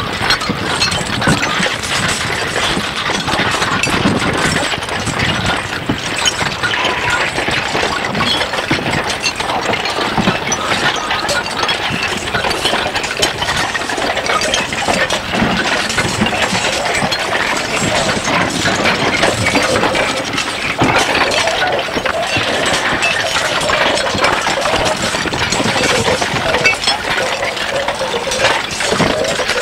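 Musique concrète noise piece: a dense, unbroken texture of rapid small clicks and clinks over a noisy wash, steady in loudness.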